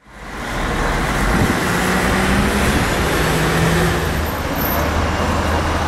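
Street traffic noise with a steady low engine drone, fading in over the first half second.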